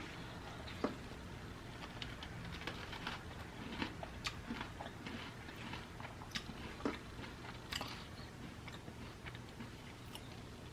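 A person chewing a mouthful of Cincinnati-style chili with oyster crackers and cheese close to the microphone: soft, irregular mouth clicks and light crunches.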